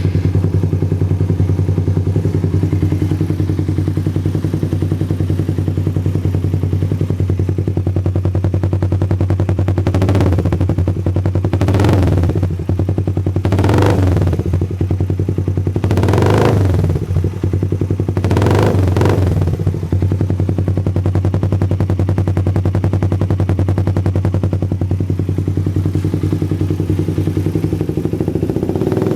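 Suzuki Raider 150's single-cylinder four-stroke engine idling through a Leovince Cobra aftermarket exhaust. It is blipped five times, about every two seconds, from about a third of the way in, then settles back to a steady idle.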